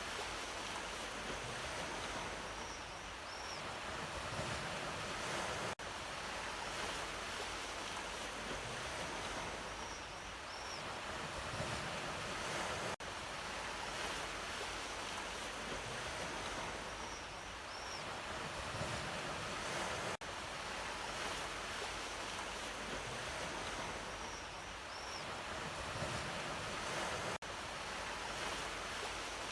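Ocean waves breaking and washing ashore in a steady surf hiss. The recording loops about every seven seconds, and each cycle carries one brief, faint high chirp.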